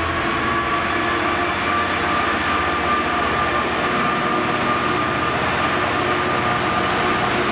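DB Cargo Class 66 diesel locomotive, its EMD two-stroke V12 engine running, hauling a freight train of flat wagons as it approaches and passes close by. A steady whine sits over the engine and wheel noise.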